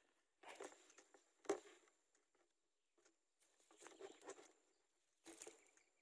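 Faint rustling and scuffling of dry grass nest material in four short bursts, the sharpest a little after a second in, as newly hatched nestlings squirm and peck at each other in the nest.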